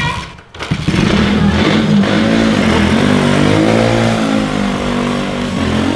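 Honda CG single-cylinder motorcycle engine revving up and down, starting loud about a second in, over the steady rush of a cascade of water pouring into a swimming pool.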